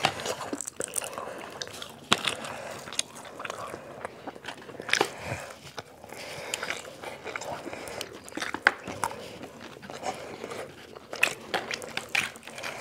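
Two people biting and chewing crispy fried chicken: irregular crunches and crackles of the fried breading, with wet chewing between them.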